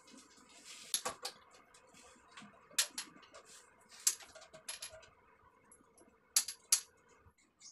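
Plumbing fittings handled behind a ceramic toilet cistern, making irregular sharp clicks and small metallic clinks, about a dozen, with two louder ones near the end.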